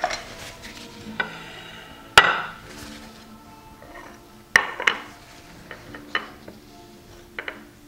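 Utensils clinking and knocking against plates and a pan as food is served: about seven sharp strikes with short ringing, the loudest about two seconds in. Soft background music runs underneath.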